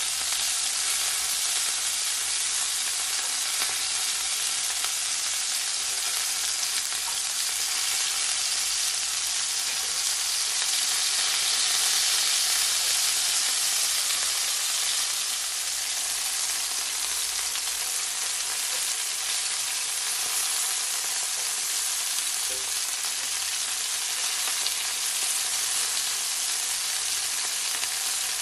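Pieces of chicken breast sizzling steadily in olive oil in a cast-iron skillet as they brown, growing a little louder about twelve seconds in.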